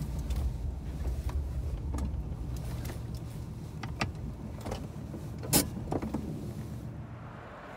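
Old Mitsubishi Debonair on the move, heard from inside the car: a steady low rumble of engine and road noise with scattered clicks and knocks, the loudest about two thirds of the way through. The rumble drops off near the end.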